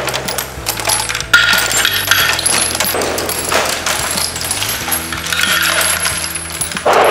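Spent brass cartridge casings clinking against each other and the concrete floor as an Ammo-Up brass pickup's wheel of plastic spikes rolls over them and gathers them up: a dense run of quick metallic clicks and jingles.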